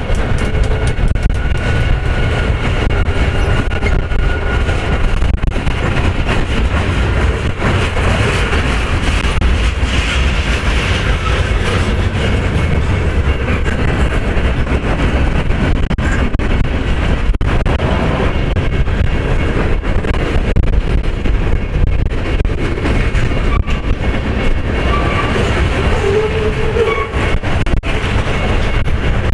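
Freight train rolling past: a steady loud rumble of cars on the rails, with clickety-clack of wheels over joints and faint high wheel squeal.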